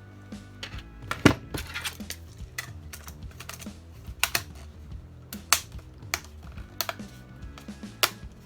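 Irregular sharp clicks and taps of small hard parts being handled during a laptop repair, roughly one a second, with quiet background music underneath.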